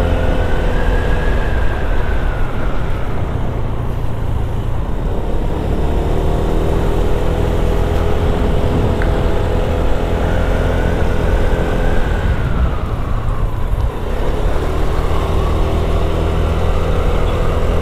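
Honda Vario 160 scooter's single-cylinder engine running under way, its note rising and falling twice as the throttle changes, with a heavy wind rumble on the microphone from riding.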